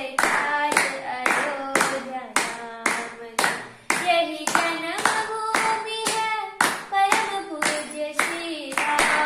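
Hands clapping in a steady rhythm, about two claps a second, in time with a voice singing a simple tune in held notes.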